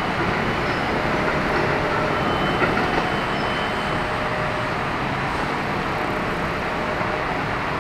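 Steady urban traffic noise from the busy road beside the railway tracks, an even rumble with no distinct events.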